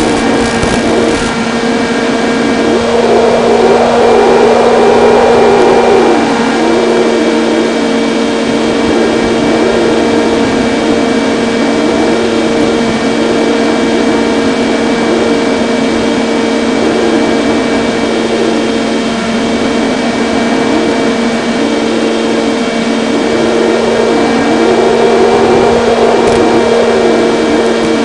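Electric motor and propeller of an FPV model plane in flight, picked up by its onboard microphone: a steady drone at one pitch under a wavering rush of wind.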